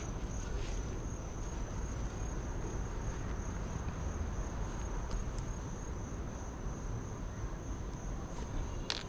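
A cricket trilling steadily on one high pitch over a low background rumble, with a single sharp click near the end.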